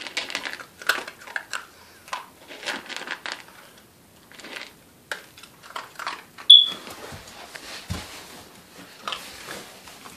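Small dog crunching dry kibble from a plastic bowl: irregular crunches, with pieces clicking against the bowl. A short high squeak comes about six and a half seconds in, and a dull thump about a second later.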